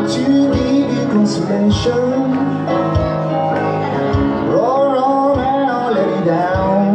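Live small band playing: electric guitar and keyboard chords under a lead melody line that bends up and down in pitch, with a steady beat.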